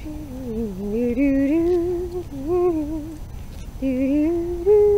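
A woman humming a slow, sliding tune in two phrases, with a short break about three seconds in.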